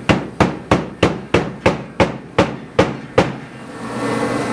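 Hammer blows struck in a fast, even series of about three a second, ten or so strikes, stopping a little after three seconds in.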